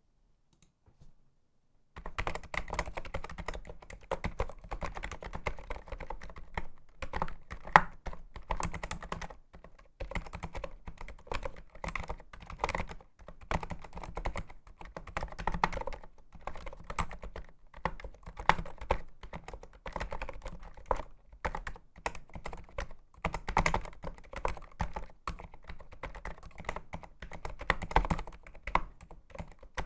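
Typing on a NiZ Plum87 electro-capacitive keyboard: a fast, continuous run of key presses that starts about two seconds in, with a short pause near the middle.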